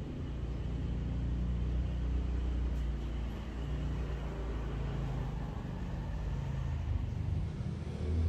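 Low rumble of a running engine, its pitch shifting up and down a few times.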